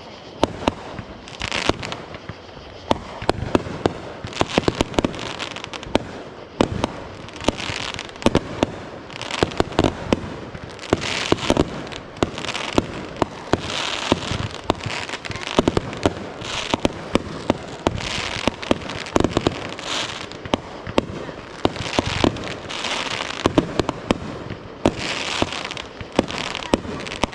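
Fireworks going off in quick succession: many sharp bangs and pops with crackling in between, continuing throughout.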